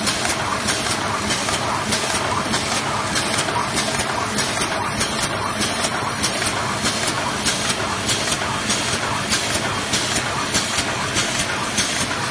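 Eraser packing machine running: a steady mechanical noise with a regular beat about three times a second as it cycles.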